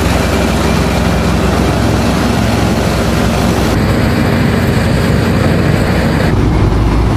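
Asphalt paver's diesel engine running steadily and loud, a low hum with overtones. Its tone shifts abruptly about four seconds in and again about six seconds in.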